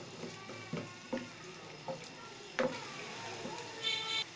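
Chopped onions sizzling gently in hot oil in a pan, with a wooden spoon stirring and knocking against the pan several times. A brief high-pitched tone sounds near the end.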